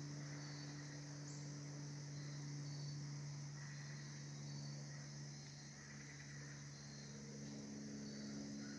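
Crickets chirping in a steady chorus, with short chirps repeating about once a second, over a faint steady low hum.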